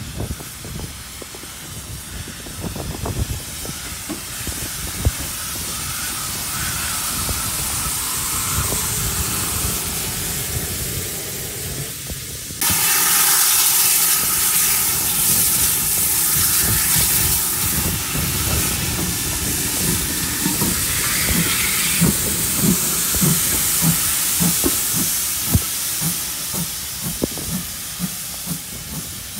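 GWR 5101-class Large Prairie 2-6-2T tank engine No. 5199 running slowly with a steady steam hiss, which turns suddenly louder about twelve seconds in. Irregular clanks and knocks come through in the later part as it moves off.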